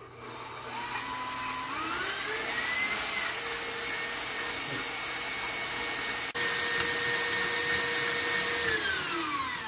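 KitchenAid Professional HD stand mixer whipping egg whites with its wire whisk. The motor whine rises in pitch as it speeds up over the first few seconds, holds steady, then falls away near the end as the mixer slows.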